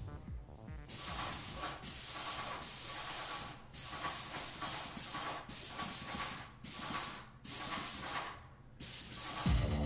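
Airless paint sprayer gun spraying in short bursts of high hiss, about ten of them, as the trigger is squeezed and released over and over while paint is laid on a wall.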